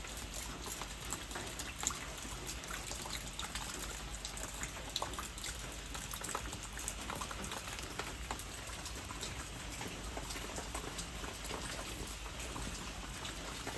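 Light drizzle falling: a steady hiss of rain with many small drop ticks scattered throughout.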